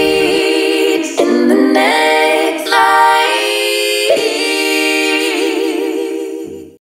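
Unaccompanied singing voice holding long notes, moving to a new pitch every second or so, fading out near the end.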